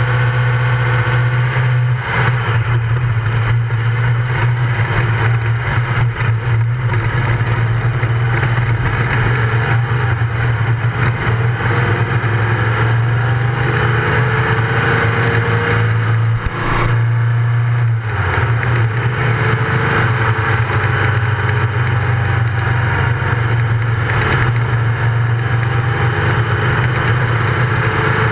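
Race car engine running hard, heard from a camera mounted on the car, its pitch climbing steadily and dropping back briefly about two seconds in and again around seventeen seconds.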